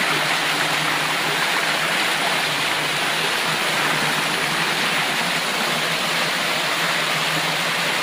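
Running water of a stream: a steady, even rush with no breaks.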